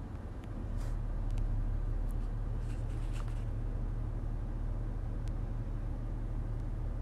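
Steady low rumble inside the cabin of a 2019 Honda Ridgeline, with a few faint clicks; the rumble grows a little louder about a second in.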